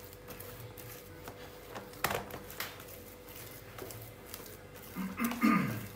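A wooden masher working soft mashed potatoes in a plastic bowl: quiet squishing and pressing, with one sharp knock against the bowl about two seconds in. Near the end comes a short sigh-like vocal sound that falls in pitch.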